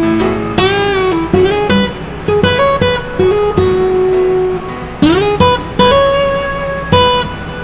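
Acoustic guitar music: plucked and strummed notes, a few of them sliding up in pitch.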